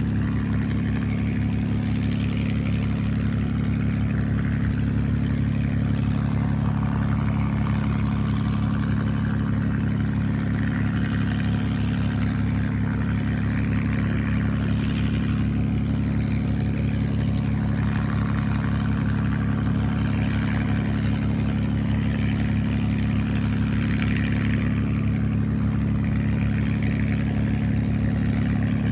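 P-51 Mustang's V-12 Merlin engine idling steadily, a constant low drone with no change in revs.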